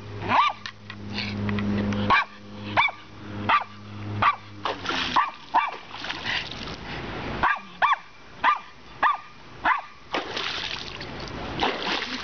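Small Lhasa Apso–poodle cross dog barking in short, high yaps, about a dozen in a row, excited by water being splashed at him. Water splashes loudly near the end.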